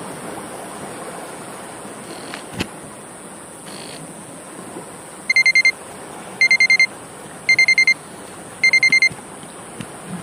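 An electronic alarm beeping: four quick bursts of about six high, shrill beeps each, starting about halfway through, over a steady wash of surf.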